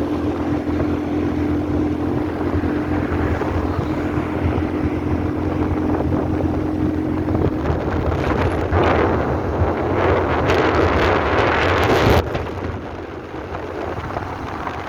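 Wind blowing hard across the microphone in gusts, strongest for a few seconds in the second half and easing suddenly near the end, over a steady low hum.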